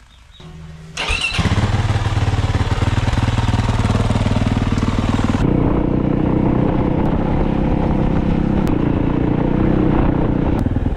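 A Yamaha 450 dirt bike's engine cuts in loud about a second in and runs steadily while riding. Around the middle the hiss on top falls away and the sound turns deeper, with the engine's low tones stronger.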